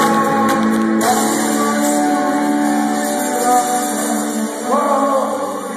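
Live rock band playing held chords with a voice singing over them.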